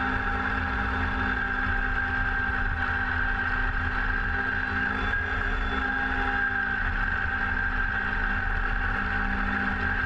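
Kubota BX compact tractor's three-cylinder diesel engine running steadily under work, with a steady high whine over the engine note.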